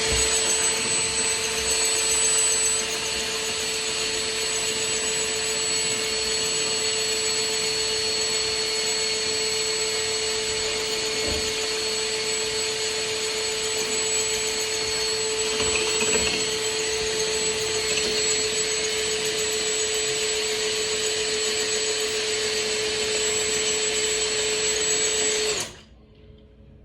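Power drill boring into brick, running steadily at a constant pitch for a long stretch, then cutting off suddenly about a second before the end.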